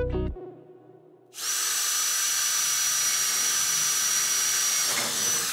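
Cordless drill boring out holes in a steel landing-gear-leg bracket, running steadily with a high whine. It starts about a second and a half in and dips briefly near the end.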